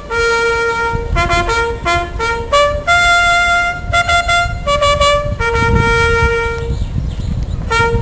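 A solo trumpet playing a bugle-style flag call, a melody of open notes with short notes between longer held ones, sounded while the flag is hoisted.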